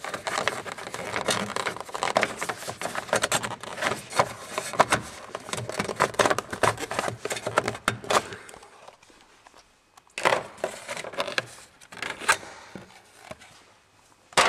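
Plastic steering-column trim covers being worked loose and handled: a dense run of clicks, rattles and scrapes for about eight seconds, then a lull and a shorter flurry of clatter.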